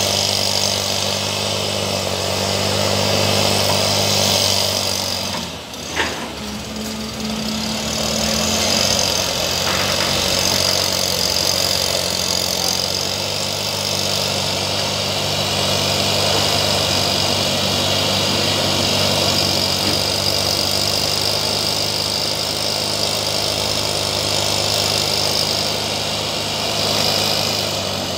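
Two-stroke engine of a STIHL backpack mist blower running steadily while it blows out a spray mist. About six seconds in the sound dips briefly and there is a sharp click.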